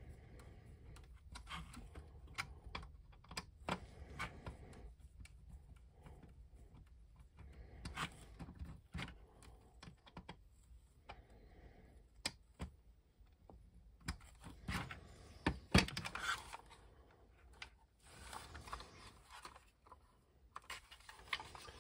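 Scattered small clicks and knocks as a screwdriver turns the screw holding a plastic toy vehicle's front wheel and the toy is handled, with a cluster of louder clicks about two thirds of the way through.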